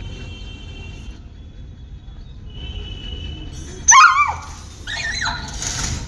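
A dog gives a short, loud, wavering yelp-like bark about four seconds in, then a second high-pitched cry near the end.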